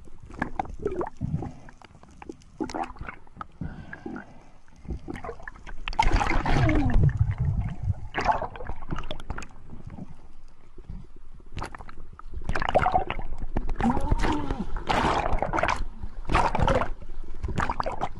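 Underwater audio from a diver's camera: bubbling and gurgling water with scattered clicks and knocks, growing louder about six seconds in and again from about twelve seconds on.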